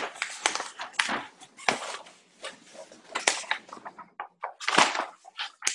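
Marker pen scraping across flip-chart paper in short, irregular strokes as an equation is written out, with a brief pause about four seconds in.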